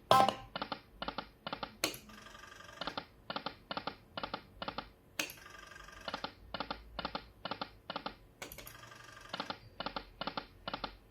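Poker machine playing spin after spin: each of about four spins opens with a sharp hit, then the reels stop one after another with a quick row of short clicks.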